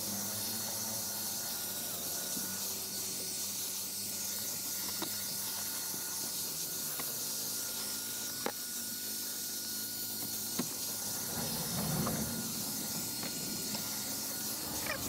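Steady hissing over a low, even hum, with a few faint clicks.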